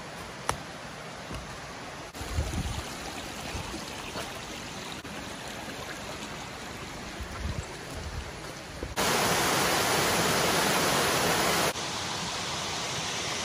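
Shallow creek running over rocks, a steady rushing of water that jumps sharply louder about nine seconds in and drops back down near the end, with a few low bumps in the first half.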